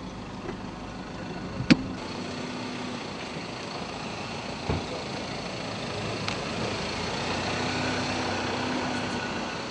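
Ford pickup engine idling steadily, then running as the police pickup pulls away, slightly louder toward the end. A sharp click about two seconds in and a duller knock about halfway.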